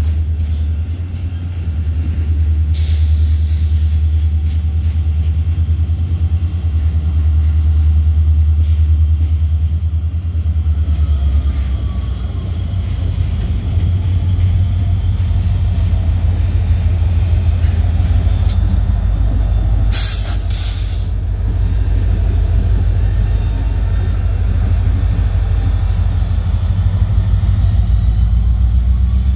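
BNSF double-stack intermodal freight train rolling past, a steady deep rumble of its railcars and a locomotive, with a brief loud hiss about two-thirds of the way through.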